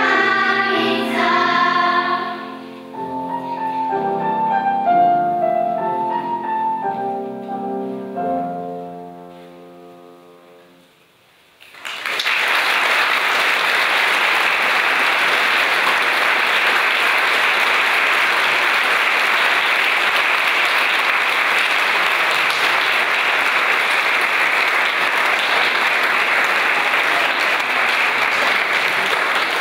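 A children's choir sings its closing phrases, the last notes dying away about ten seconds in. After a brief hush the audience breaks into steady applause that lasts the rest of the time.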